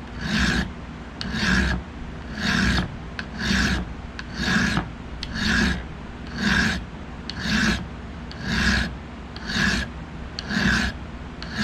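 Hand file rasping across the protruding tang end of an Air Force survival knife in slow, even strokes about once a second, flattening it before it is peened over.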